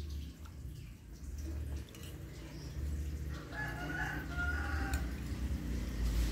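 A rooster crowing once, starting about three and a half seconds in and lasting about a second and a half.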